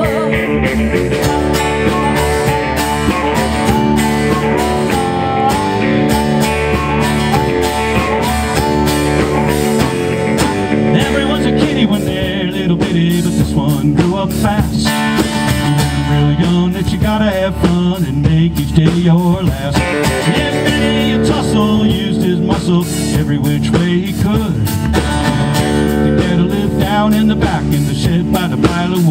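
Live country-blues band playing a song: acoustic and electric guitars over bass guitar and drums.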